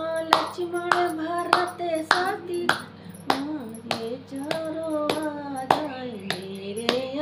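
A woman singing a devotional folk song while clapping her hands in a steady rhythm, a little under two claps a second.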